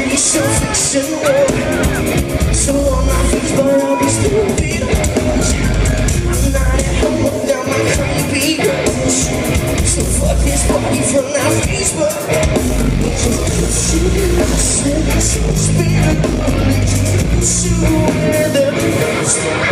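Live rock band playing loudly in a concert hall: a singer's vocals over electric guitar, drum kit and electronic keyboard backing, with heavy bass throughout.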